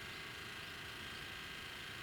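Faint steady background hiss with no distinct events.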